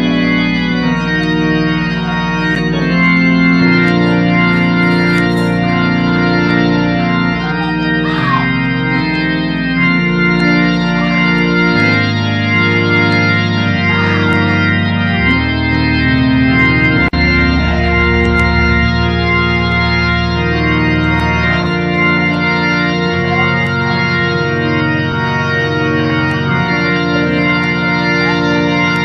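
Organ music: slow, held chords over a bass line that shifts every few seconds.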